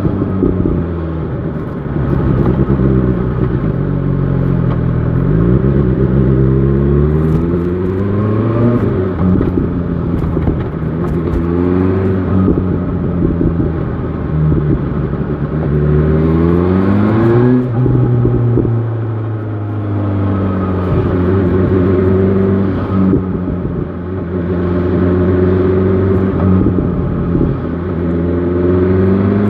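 BMW S1000 XR motorcycle engine heard from the rider's position, accelerating through the gears: the revs climb and drop back again several times as it shifts up, with stretches of steadier running and slowing between the pulls.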